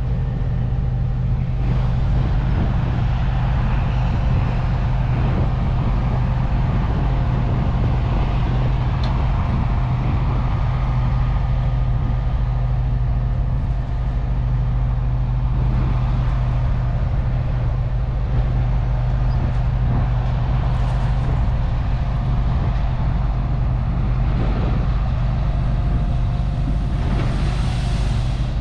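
Large farm machine's engine running steadily with a constant low drone. A rushing noise swells near the end.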